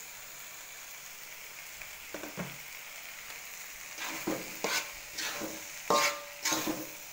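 Grated coconut and spice paste frying in a metal wok, with a steady sizzle. From about four seconds in, a metal spatula scrapes and knocks against the wok in quick strokes as the mix is stirred.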